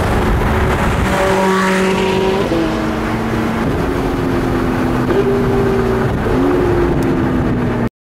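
McLaren MP4-12C Spider's twin-turbocharged V8 running at highway speed, heard from the open-top cabin under heavy wind and road noise; the engine note holds steady pitches that shift up and down a few times. The sound cuts off abruptly near the end.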